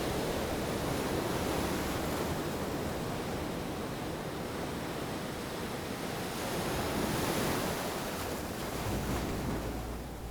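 Sea water rushing and splashing with wind buffeting the microphone, a steady noisy wash that swells a little about seven seconds in, as heard aboard a sailing yacht under way.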